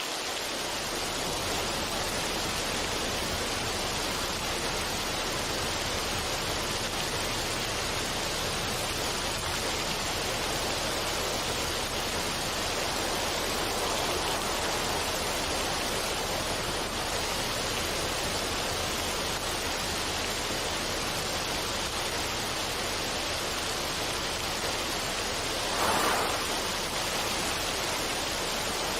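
Steady sound of running water, an even wash of noise, swelling briefly louder once near the end.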